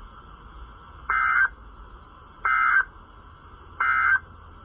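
Three short, identical bursts of Emergency Alert System data tones from a NOAA Weather Radio broadcast, about one and a third seconds apart: the end-of-message (EOM) code that closes the alert.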